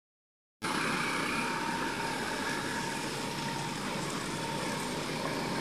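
Road traffic passing on a wet dirt road: steady engine noise and the hiss of tyres and water spray, starting suddenly after a moment of silence.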